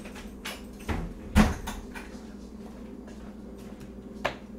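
Several sharp knocks and bumps off-microphone, the loudest about a second and a half in and a last one near the end, over a steady low hum.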